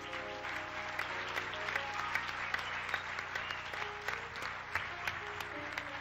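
Audience applause breaks out at the end of a song while a piano keeps playing notes underneath.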